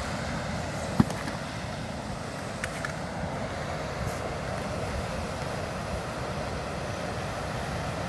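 Steady rush of white-water river rapids, with wind rumbling on the microphone. A sharp knock comes about a second in, and a few small clicks follow.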